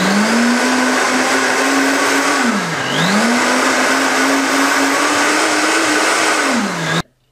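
Harrexco high-speed countertop blender running at speed, its motor pitch steady under a dense whirring. The pitch dips once about three seconds in and climbs back, then sags and cuts off abruptly about a second before the end.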